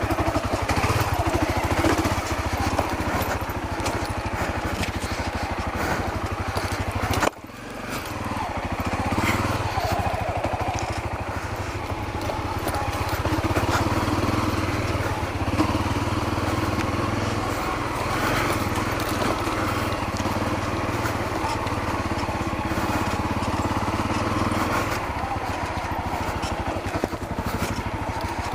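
Honda CRF250L dirt bike's 250 cc single-cylinder four-stroke engine running under way, steady and loud, with a brief sudden drop in sound about seven seconds in.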